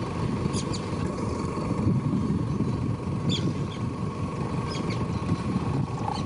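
Vehicle engine idling with a steady low rumble, and a few short high chirps over it.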